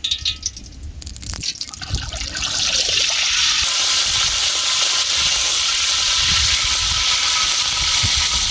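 Cold-pressed groundnut oil poured in a thick, steady stream into a large wok, a pouring, filling hiss that starts about a second in and grows steady and loud.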